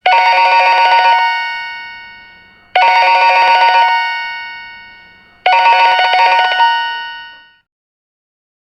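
Cheap plastic telephone ringing with an electronic warbling trill. It rings three times, about every 2.7 seconds, each ring trilling for about a second and then fading away.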